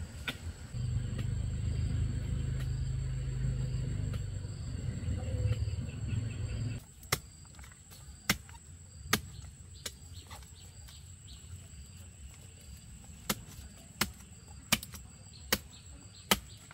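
A low, steady mechanical rumble for about six seconds that cuts off abruptly, followed by a run of sharp knocks or chops, roughly one a second and unevenly spaced.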